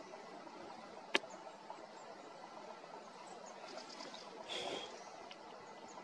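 Faint steady outdoor background hiss, broken once by a single sharp click about a second in and by a brief noisy burst with a short high tone a little after four seconds.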